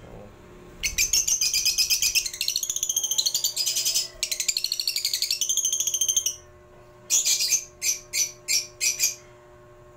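Lovebird chattering close by: a loud, rapid, high-pitched twittering for about five seconds, then several short bursts near the end.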